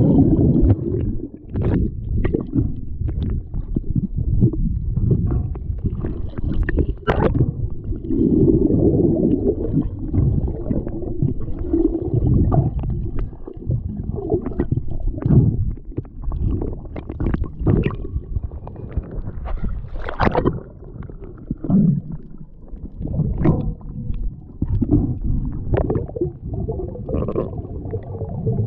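Muffled underwater sound picked up by a GoPro Hero 7 held below the surface: low rumbling and gurgling water movement as the diver swims, with many short sharp clicks and knocks scattered through it.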